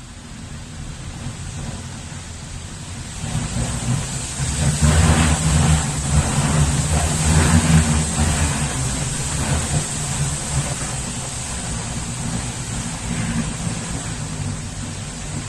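Strong wind gusting and buffeting the microphone as a deep rumble, building about three seconds in, strongest for a few seconds after that, then easing off to a steady blow.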